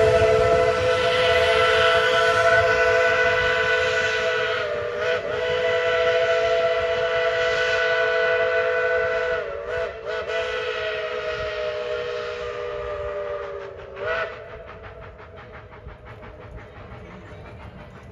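Tweetsie Railroad No. 12 steam locomotive's whistle blowing one long blast of several notes sounding together, wavering briefly twice and sagging slightly in pitch before cutting off about 14 seconds in. After that the train is heard more faintly as it rolls away.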